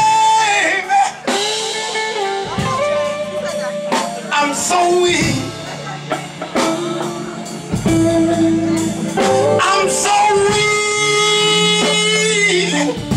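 Live band music with guitar and a singer holding long notes, the longest held note near the end.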